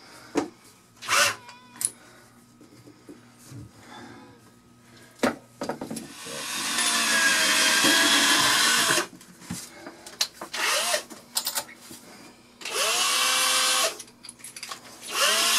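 Handheld power drill screwing a wooden wall cabinet to the wall, running in bursts: one long run of about three seconds, a shorter one of about a second, and a third starting near the end. The motor's pitch rises and then drops at the end of each run. A few knocks of handling the cabinet come before.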